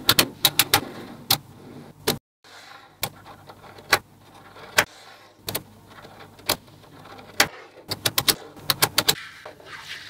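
Small magnetic balls snapping and clicking together as they are placed, sharp clicks at irregular intervals, with quick runs of several clicks near the start and again about eight to nine seconds in.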